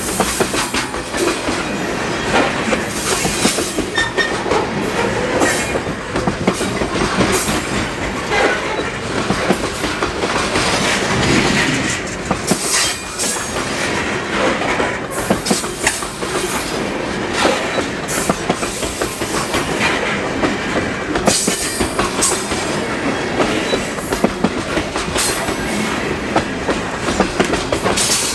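A loaded sulfur freight train's cars rolling past, wheels clicking over rail joints in a steady stream.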